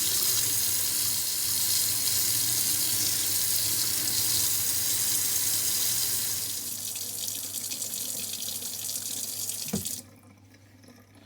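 Warm water running from a tap over a stuck jar lid to loosen it by expansion. The splashing gets softer about six and a half seconds in, there is a single knock near the end, and the tap is shut off suddenly about ten seconds in.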